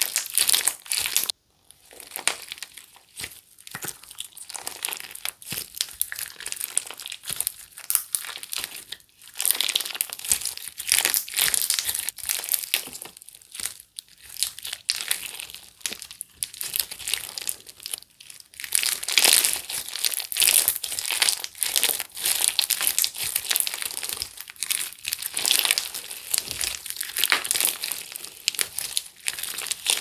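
Clear mint slime full of small air bubbles being squeezed, folded and stretched by hand, giving a dense, irregular crackle of tiny clicks and pops in surges. The sound drops out briefly about a second and a half in.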